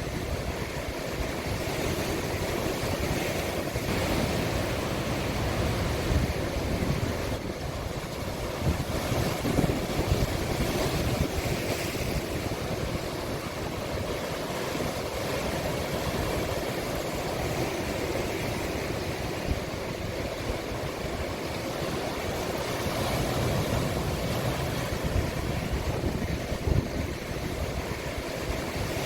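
Sea waves washing into a small cove: a continuous surf that swells and eases over several seconds.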